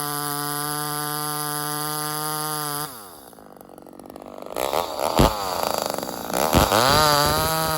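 Ported Homelite XL-76/XL-130 hybrid two-stroke chainsaw running at a steady high pitch. About three seconds in, the revs fall away sharply. It then revs up and down with two sharp knocks, and it settles back to the same steady high pitch near the end.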